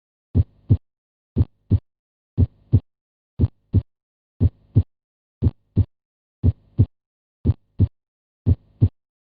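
Heart sounds: a steady heartbeat of about one beat a second, each beat a lub-dub pair (the first heart sound, S1, then the second, S2, about a third of a second later) as the heart valves close.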